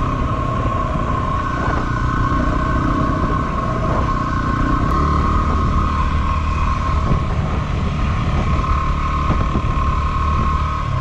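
2016 Yamaha WR250R's single-cylinder four-stroke engine running at a steady cruise under way on a dirt track, a constant engine drone over low road rumble.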